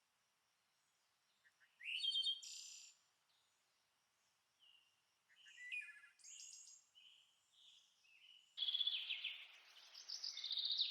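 Quaker parrots (monk parakeets) calling: short high chirps about two seconds in and again around six seconds, then a louder, rapid run of chattering calls from about eight and a half seconds.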